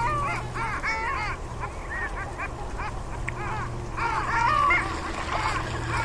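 A flock of gulls calling: many short, overlapping calls that rise and fall in pitch, busiest at the start and again about four seconds in, over a steady low hum.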